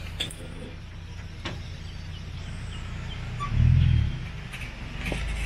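Resort shuttle train's engine running with a steady low hum while the train creeps forward, swelling briefly into a louder low rumble about three and a half seconds in.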